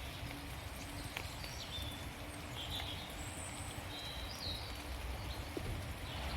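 Steady rain falling in woodland, with a few drips ticking and small birds giving short, high chirps here and there.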